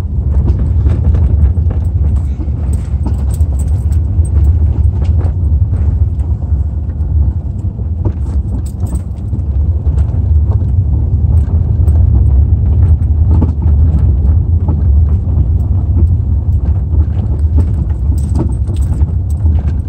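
Car driving on a rough dirt trail, heard from inside the cabin: a steady low rumble from tyres and engine, with frequent knocks and rattles as the car bumps over the uneven ground.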